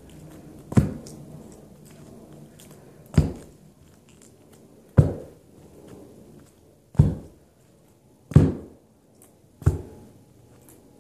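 A homemade fingerboard knocking against carpet as it is worked with the fingers: six separate knocks, about one and a half to two and a half seconds apart.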